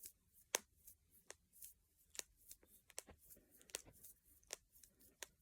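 Knuckles and finger joints cracking: a run of sharp, irregular pops, about two or three a second, the loudest about half a second in.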